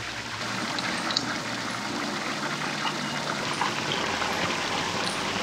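Water from a fountain spout pouring and splashing steadily into a stone basin and drain.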